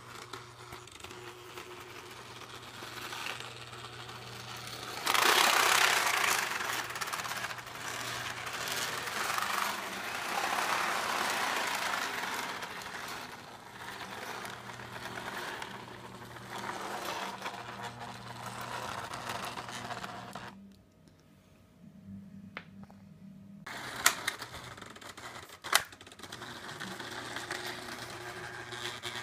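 HO scale model train running on a small loop of track: the locomotive's electric motor and gears whirring, with the wheels clattering on the rails. Past the middle it goes quiet for about three seconds, then there are two sharp clicks and the running picks up again.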